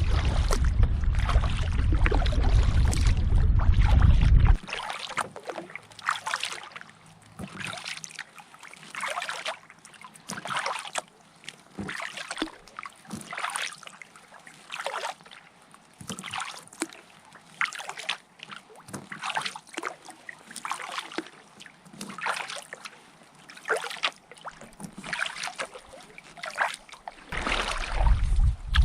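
Kayak paddle strokes in the water: a short splash about every second, with dripping between strokes. A loud low rumble covers the first four seconds or so and returns near the end.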